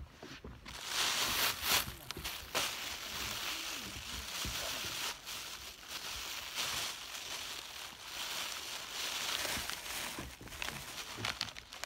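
Thin plastic bag crinkling and rustling unevenly as a hand rummages inside it.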